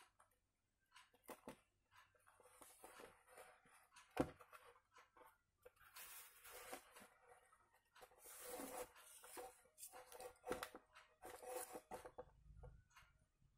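A plastic motorcycle body panel being handled and worked with a soldering iron: faint rustling, scraping and creaking of the plastic, with scattered small clicks and one sharp knock about four seconds in.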